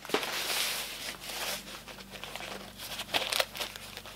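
Rustling and rubbing as a rolled diamond painting canvas is handled, with a louder cluster of crinkles about three seconds in.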